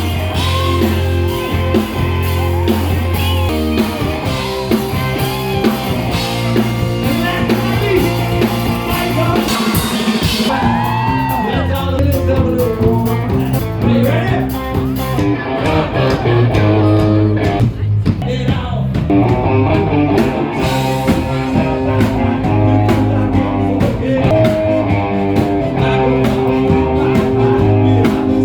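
Live band playing a song: singing over electric guitar, bass and drums, with regular drum hits coming through more clearly from about halfway in.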